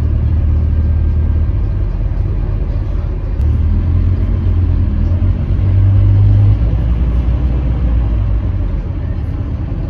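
Scania K310UB bus's rear-mounted five-cylinder diesel engine running under way, heard from inside the passenger cabin as a loud low drone. The drone steps up and down in pitch a few times as the engine speed changes.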